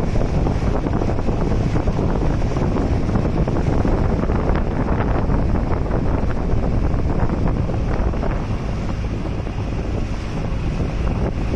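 Steady wind buffeting the microphone on a moving outrigger boat, over the boat's engine running and water rushing past the hull. The wind eases slightly about eight seconds in.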